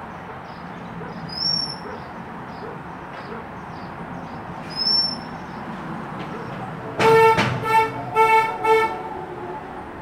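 Four short, loud horn toots in quick succession about seven seconds in, the first the longest, after two brief high whistles earlier.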